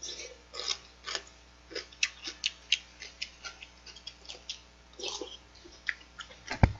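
Eating sounds: irregular soft clicks and smacks of a mouth chewing and sipping spoonfuls of seolleongtang with rice, a few a second. One sharper knock near the end, a metal spoon against the bowl.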